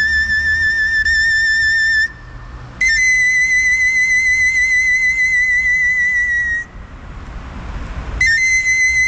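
Pan flute playing three long held notes with vibrato, separated by short breaths; the second and third are a little higher than the first.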